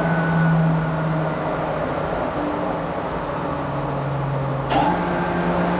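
13 kW three-phase electric motor running with a steady hum. The tone drops about a second in. A sharp click comes near the end, after which the hum returns to its higher pitch, consistent with the motor being switched off and reconnected while still turning for a self-restart current test.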